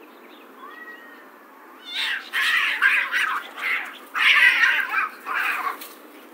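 Two cats fighting: a faint, drawn-out yowl over the first two seconds, then a string of loud, harsh screeches as they grapple, ending shortly before the end.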